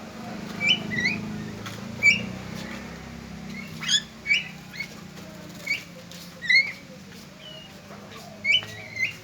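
Javan myna giving short, sharp chirping calls, about nine of them at irregular intervals, each with a quick upward flick. A low steady hum runs underneath.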